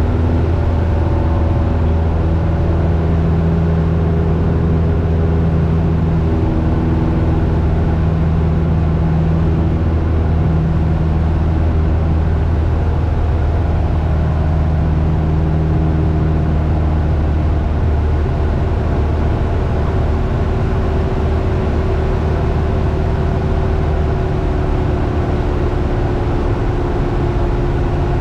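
Cessna 172's piston engine and propeller in flight, a steady low drone heard from inside the cabin.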